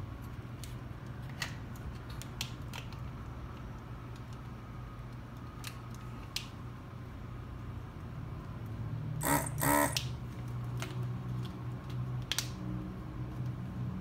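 Hakko FR-301 vacuum desoldering gun clearing solder from circuit-board pins: a steady low hum that grows louder about eight seconds in, light clicks, and two short, loud bursts of suction noise a little after nine seconds as it pulls molten solder off the pins.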